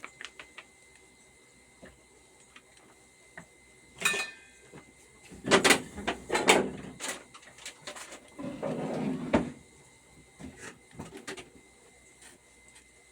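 Kitchen handling noises: a clink with a brief ring about four seconds in, a cluster of loud knocks and clatters around six seconds, then about a second of rustling, with faint scattered clicks.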